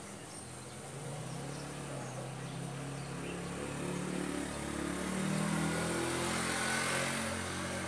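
A motor vehicle's engine running nearby, its pitch shifting up and down, getting louder from about five seconds in.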